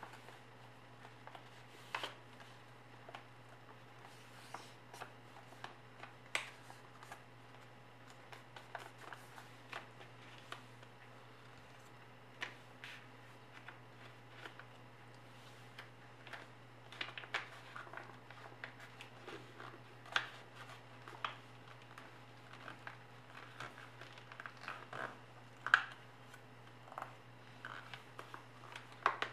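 A sheet of paper being folded and creased by hand into a paper airplane: irregular soft crackles, rustles and taps. They get busier in the second half, with one sharper snap near the end.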